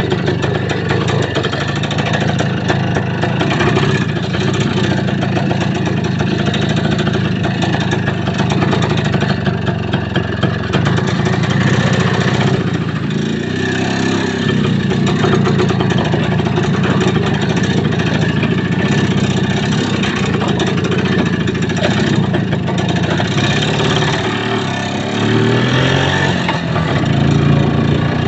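A vehicle engine running under way, with rattle and road noise. The engine pitch rises and falls about halfway through, and climbs again near the end as it revs up.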